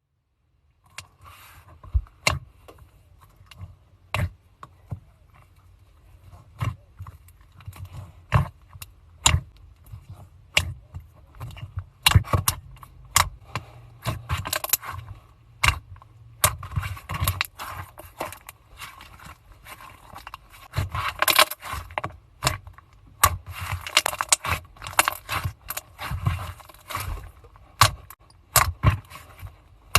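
Slime being squeezed, pressed and stretched by hand, giving irregular sharp clicks, pops and crackles that come in denser flurries in the second half.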